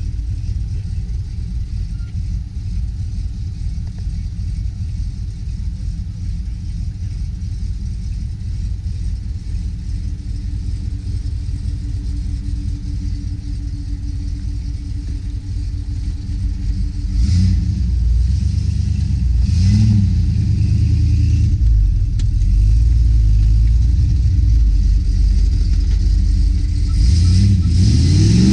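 Land Rover Discovery engine working under load as it climbs a steep muddy track, a steady low rumble. It grows louder about two thirds of the way through with a couple of short revs, and revs up sharply right at the end.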